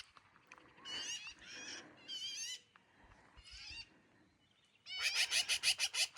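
Birds calling in short, wavering bursts, then a fast run of harsh, chattering notes starting about five seconds in.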